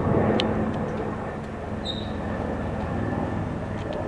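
Helicopter flying low overhead: steady rotor and engine noise, loudest at first and easing off as it moves away.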